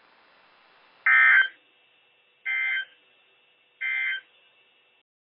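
NOAA Weather Radio's EAS/SAME end-of-message signal: three short bursts of warbling digital data tones about a second and a half apart, the first louder than the other two, marking the end of the warning broadcast. Faint receiver hiss lies between the bursts, and the audio cuts off suddenly near the end.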